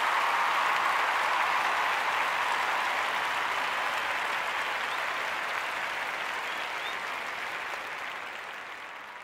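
Applause from a group of people, dense and steady at first, then dying away over the last few seconds.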